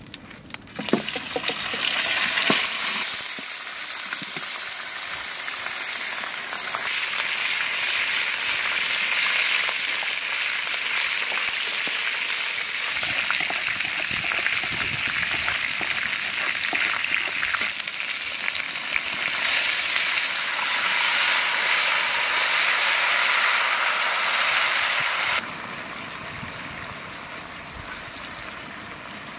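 Browned chicken drumsticks going into hot oil in a wide pan and frying with a loud, steady sizzle that starts about a second in, with the pieces being stirred in the pan. Near the end the sizzle drops suddenly to a quieter level.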